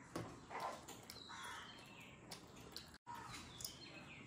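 Quiet eating sounds, with a few short clicks of chewing and mouth noise, and birds chirping now and then in the background. The sound drops out for an instant about three seconds in.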